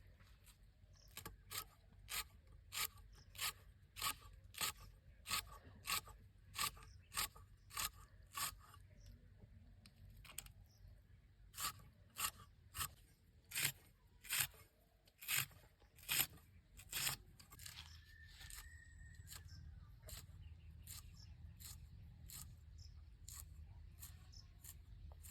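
A kitchen knife chopping on a cutting board, sharp crisp strokes about two a second in two runs with a short pause between, stopping a little over two-thirds of the way through.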